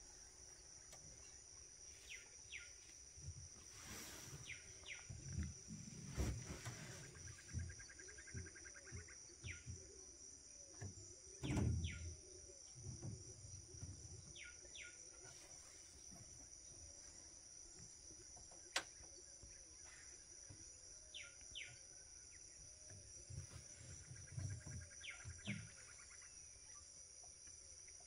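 Faint tropical dawn chorus over the Amazon River: a steady high insect drone, with birds giving short paired chirps every few seconds and a rapid trill twice. Scattered low thuds, the loudest about twelve seconds in.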